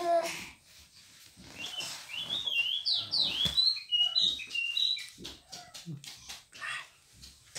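Baby girl about eleven months old making high-pitched squeals that rise and fall in pitch, mostly in the first half, after a short vocal sound at the start.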